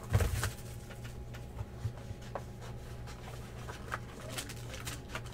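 Trading cards pulled from a foil pack wrapper and shuffled in the hands: a louder crinkle and rustle at the start, then light scattered clicks and slides of card stock, over a steady low electrical hum.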